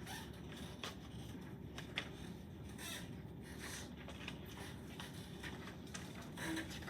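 Quiet classroom room tone: a steady low hum with scattered faint rustles and small clicks, the sharpest click about two seconds in.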